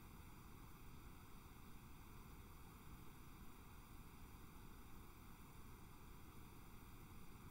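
Near silence: a faint, steady hiss of recording noise.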